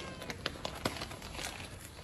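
Scattered light clicks and taps of a cat's claws on a tile floor as it moves about.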